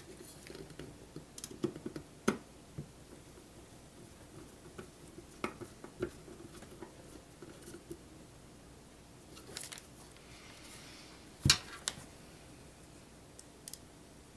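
A hard drive and its bay in a desktop computer case being handled and fitted: scattered light clicks and taps, a brief scrape about ten seconds in, and the loudest knock just after it.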